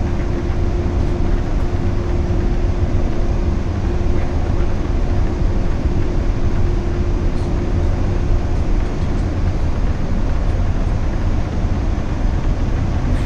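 Boeing 787 jet airliner taxiing with its engines at idle: a steady, deep rumble with a held hum that stops about nine seconds in.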